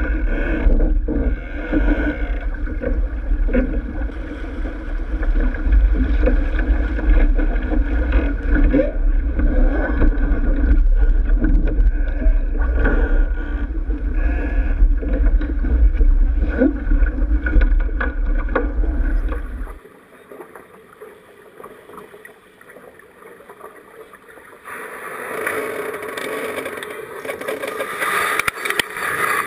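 Sailboat under way: wind buffeting the onboard camera's microphone over rushing water and small knocks from the boat. About two-thirds through, the wind rumble cuts out, leaving quieter water sound, and a louder hissing wash of water and wind comes back near the end.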